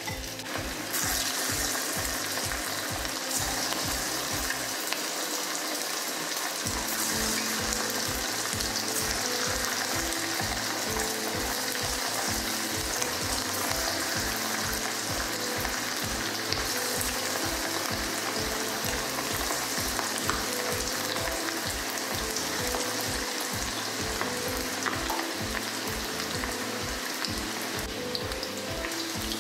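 Breaded chicken pieces deep-frying in hot oil in a steel kadhai: a steady, continuous sizzle and bubbling. Near the end a slotted spoon stirs the pieces in the oil.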